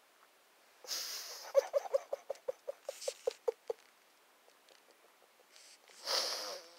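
Tabby cat grooming a person's hair with its mouth close to the microphone: a quick run of about a dozen short, wet licking clicks, about five a second. Short rustling bursts come just before the licks and again near the end.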